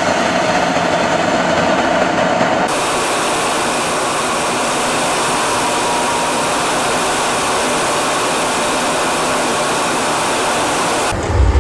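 Steady rushing noise of a jet fighter in flight, air and engine heard from inside the cockpit. It changes abruptly about three seconds in to a brighter, even hiss, then holds steady.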